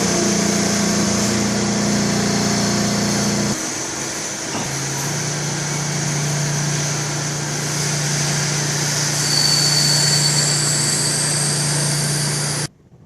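Hanwha XD26H Swiss-type CNC sliding-headstock lathe running through a machining cycle: a steady mechanical hum over a hiss. The hum drops in pitch about three and a half seconds in, and a thin high whine joins around nine seconds. The sound cuts off suddenly near the end.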